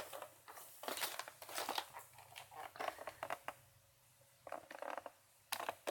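Toy packaging being handled: irregular crinkling and crackling of cardboard and plastic in several short clusters, with a brief lull midway.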